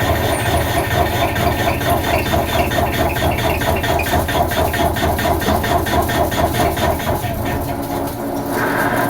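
Dalian 6180Z CNC lathe running, a steady machine hum with a fast, even beat through most of it. The beat fades near the end and the hum shifts to a lower steady tone.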